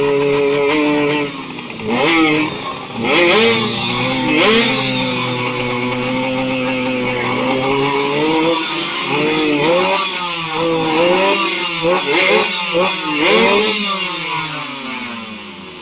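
Yamaha F1ZR's 110cc two-stroke single-cylinder engine revving hard in repeated throttle blips, the pitch rising and falling again and again. Near the end the pitch sweeps down as the revs drop.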